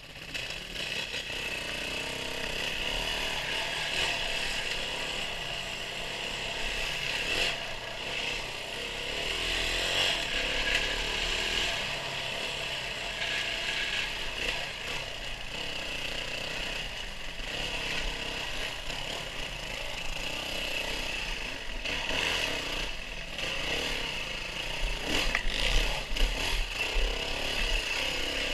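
Engine of a small off-road vehicle running, its throttle and loudness rising and falling. A few clattering knocks come in the last few seconds.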